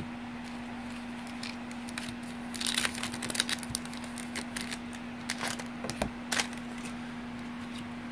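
Baseball cards being handled and shuffled, with a cluster of short crinkling and crackling sounds from about two and a half to six and a half seconds in, over a steady low hum.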